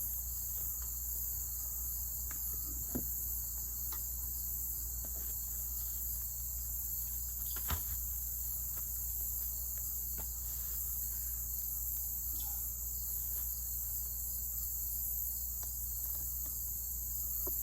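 Steady high-pitched chirring of insects, with a few faint clicks and knocks; the sharpest click comes about eight seconds in.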